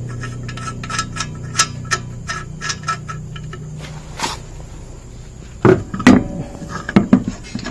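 Metal wheel nuts clicking and clinking as they are handled and threaded onto the wheel studs of a spare tyre, then several loud knocks near the end.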